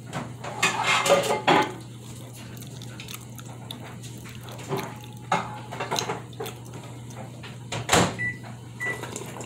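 Close-up chewing and lip-smacking while eating fried banana, with a sip from a tumbler near the end, over a steady low appliance hum. Two short high electronic beeps sound close together near the end.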